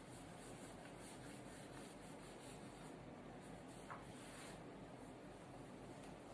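Chalk writing on a blackboard: faint scratching in short strokes, with a brief squeak about four seconds in.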